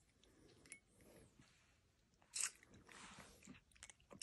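Faint wet smacking and clicking from a cat's mouth and tongue while its jaw is held open, with one short, louder rasp about two and a half seconds in.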